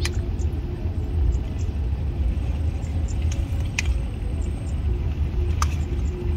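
Steady low rumble with a few sharp snaps, three times, as sweet potato leaf stems are broken off by hand.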